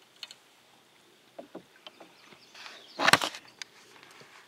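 A short, loud splash of water at a kayak about three seconds in, after a few light knocks.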